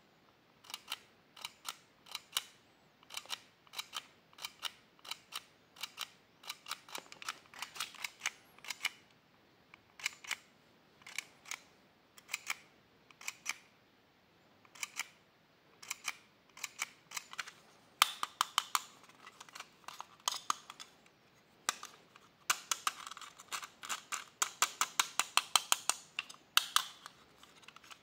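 Small plastic toy projector watch clicking as its image dial is turned: sharp plastic clicks, one or a few at a time, then fast runs of clicks twice in the second half.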